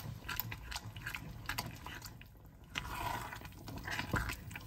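Wooden spoon stirring thick chickpea gravy in an enamelled pot: irregular wet squelching, with light knocks of the spoon against the pot.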